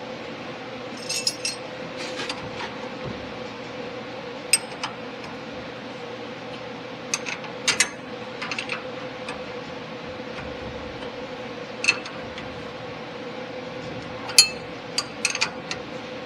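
Steel wrenches clinking on a nut and bolt as the bolt is held and the nut tightened on a suspension part: short, irregular metallic clicks in small clusters, the sharpest about two-thirds of the way through. A steady hum sits underneath.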